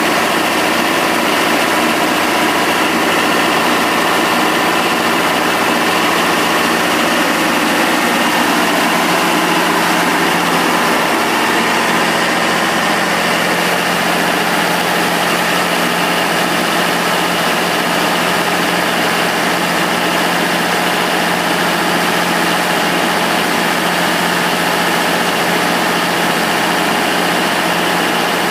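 Tub grinder's 650-plus-horsepower Cummins diesel engine running steadily, idling.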